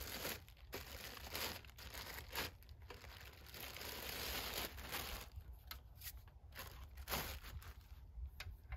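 Clear plastic packaging bag crinkling and rustling as it is handled and a small heater is pulled out of it, with a few sharp crackles.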